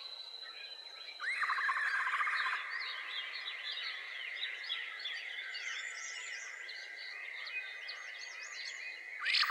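Natural chorus of birds chirping and whistling over a steady, high insect-like trill, with a louder buzzy trill lasting about a second and a half from about a second in, starting again near the end.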